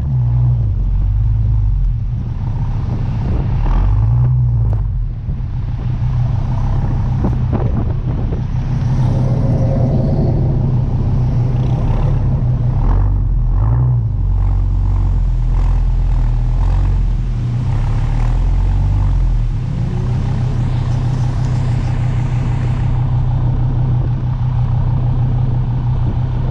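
Dodge Viper V10 engine running while the car drives slowly in traffic. The deep exhaust note swells a few times as the throttle opens and eases off, with some wind noise over it.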